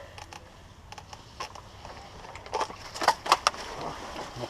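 A handful of short, sharp clicks and knocks: one about a second and a half in, then several close together around three seconds in, over a faint background hiss.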